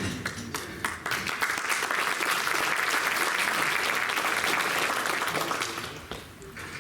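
Audience applauding in a council chamber, swelling about a second in and dying away near the end.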